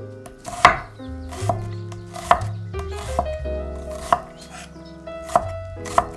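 Knife chopping on a cutting board: single sharp cuts about a second apart, over background music with a steady bass line.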